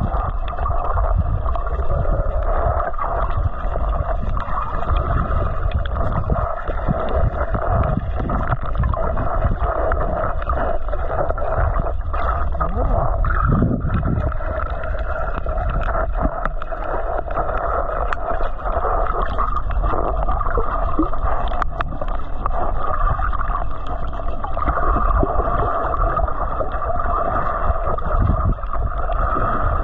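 Underwater sound picked up by a submerged camera: a steady, muffled rumble of water with a constant hum and scattered faint clicks.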